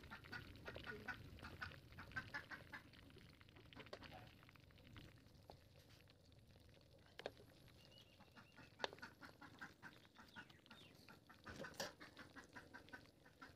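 Faint bird calls in quick runs of short notes, coming in three bouts, with a couple of sharp clicks in between.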